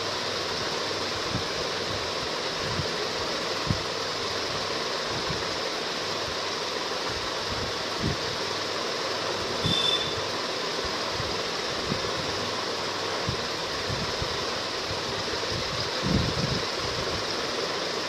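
Steady hiss of background noise, with a few soft low thumps scattered through it and one brief high tone about ten seconds in.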